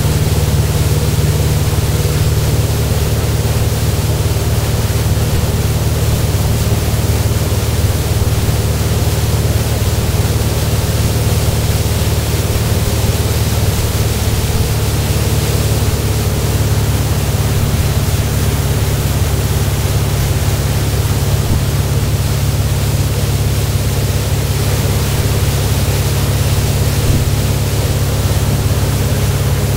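Speedboat's engine running steadily at towing speed under a constant rush of noise from the churning wake and the air past the boat.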